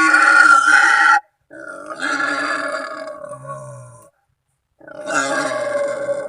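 Wild boar calling with harsh, pitched squeals and grunts, the kind of call used to lure boar in. It comes in three stretches: a loud one that cuts off suddenly about a second in, a weaker one, then a loud one again after a short silent gap.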